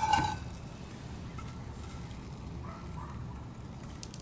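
Cast iron skillets knocking together with a short metallic clank and ring as the smallest is lifted out of a nested stack, followed by a steady low background hiss.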